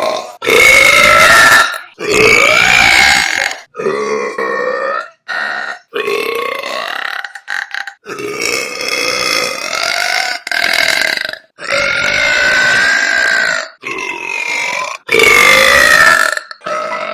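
A woman's loud belches, about a dozen one after another. Each is long and drawn out, lasting roughly one to two seconds, and each cuts off abruptly before the next begins.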